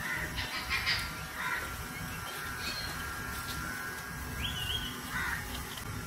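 Parrots squawking: several short, harsh calls spread through a few seconds, with a brief whistle about two-thirds of the way in.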